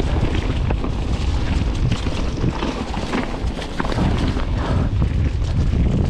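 Mountain bike riding down a trail, heard on the bike or rider's camera. Heavy wind rumble on the microphone carries through, with constant rattling and clatter from the tyres and bike over the rough ground.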